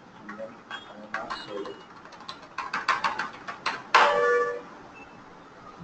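Computer keyboard typing: a quick run of key clicks, ending about four seconds in with a louder sound that rings briefly.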